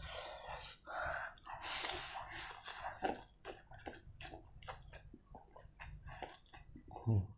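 A man slurping instant ramen noodles off chopsticks and chewing: several long sucking slurps in the first few seconds, then quick wet chewing and mouth-smacking clicks.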